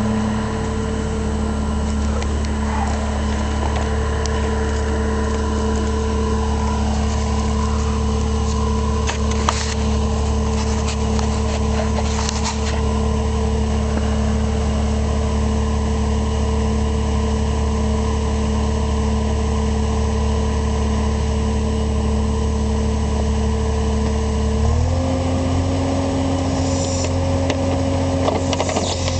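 8875 skid loader's engine running steadily, with a few sharp clanks about ten and twelve seconds in. About four seconds before the end, the engine speed steps up and holds higher.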